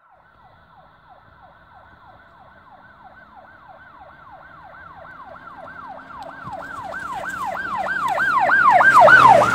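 A siren-like electronic wail, one tone falling in pitch over and over at about three sweeps a second. It grows steadily louder, as if approaching, and is loudest near the end.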